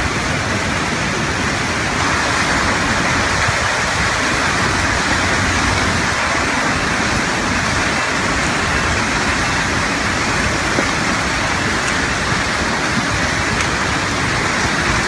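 Loud, steady rush of a muddy flash-flood torrent pouring down a hillside, with no break or change in the water noise.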